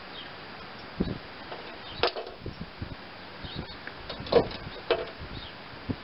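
Scattered clicks and knocks of hand work on a lawn tractor's wiring, the loudest about four and a half seconds in, over a steady background hiss.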